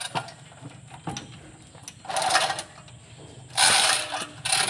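Chain hoist being worked, its chain rattling and clicking through the block in three short runs after a few scattered metal clicks, the second run the loudest.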